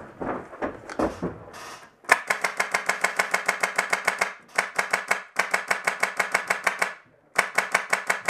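Airsoft rifle firing on full auto: four long bursts of rapid, even shots, the last one short.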